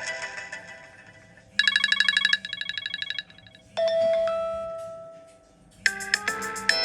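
iPhone 5s ringtones played back to back. One fades out, then a quick run of repeated bright chime notes with fainter echoes, a single held tone that fades away slowly, and a new ringtone starting with rapid notes near the end.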